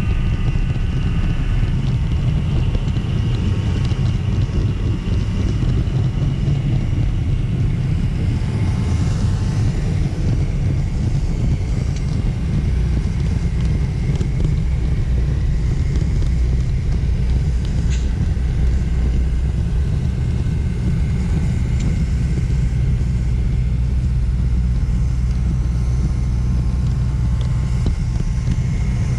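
Model train running along its track, a steady rumble of wheels and motor heard up close from a camera riding on the train.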